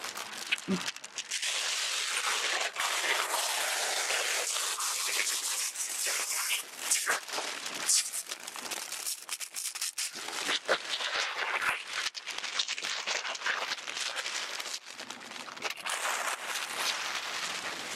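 Thin clear plastic transfer film being peeled off window glass and bunched by hand, crinkling and crackling continuously with many sharp snaps. This is the film being removed after an application of adhesive bird-deterrent dots.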